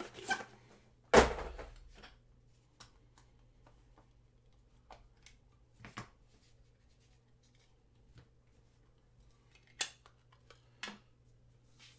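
Trading-card hobby box being opened and handled: one loud knock a little over a second in, then scattered small clicks and scrapes of packaging.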